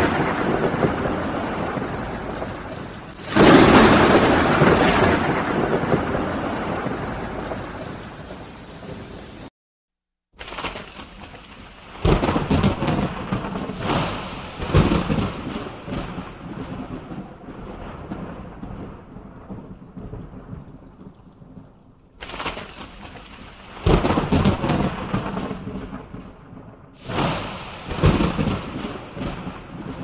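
Thunder rolling in a thunderstorm: a loud peal at the start and another about three seconds in, each rumbling away slowly over several seconds. After a brief dropout, shorter cracks and rumbles follow every few seconds.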